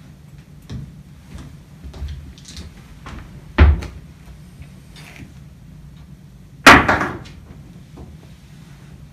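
Two loud slams or thumps about three seconds apart, the second the louder, with softer knocks and taps between them.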